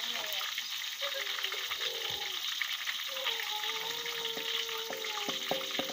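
Hot oil sizzling and crackling steadily in a steel wok as whole Asian sea bass deep-fry, with a few sharp clicks near the end. A faint, high, wavering voice comes in behind it about halfway through.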